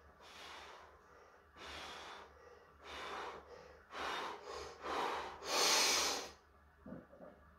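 A powerlifter's heavy, forceful breaths, six in a row, the last the loudest, as he stands braced under a 241 kg barbell for a back squat.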